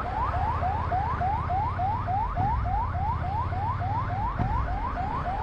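Ambulance siren in fast yelp mode: a short rising whoop, repeated about four or five times a second without a break.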